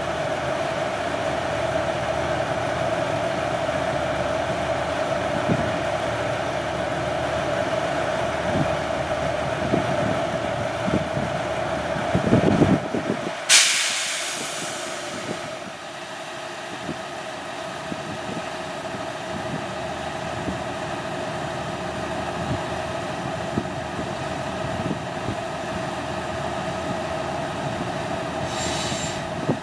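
Small diesel shunting locomotive running slowly while hauling passenger coaches: a steady engine drone with a held whine over a low rumble. About halfway through come a few heavy knocks, then a sudden sharp hiss that dies away within a second or two. A short high squeak follows near the end.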